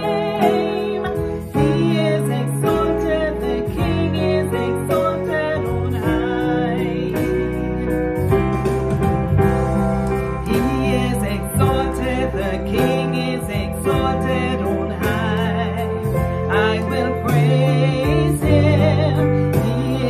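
A woman singing a gospel worship song, with vibrato on her held notes, over long sustained low instrumental chords.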